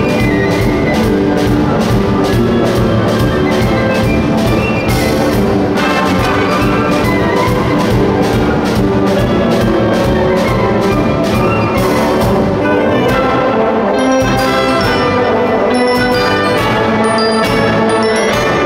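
School wind band playing live: brass and saxophones over a steady drum-kit beat, which drops out about twelve seconds in while the horns play on.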